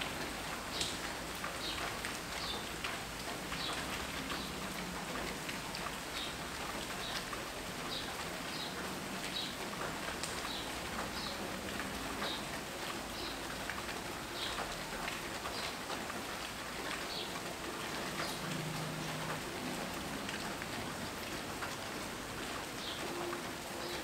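Steady rain falling, a constant even patter, with repeated short high chirps about once a second over it.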